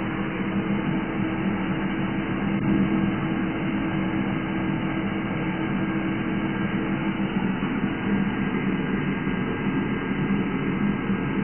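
Steady low hum under a constant hiss, with one faint click about two and a half seconds in.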